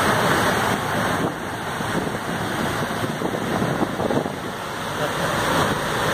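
Floodwater rushing and splashing steadily as a diesel locomotive ploughs through it and pushes a bow wave, with wind buffeting the microphone.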